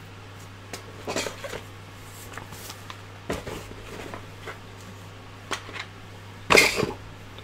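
Scattered clicks and knocks of small hard tools and parts being picked up and set down, with the loudest clatter about six and a half seconds in, over a steady low hum.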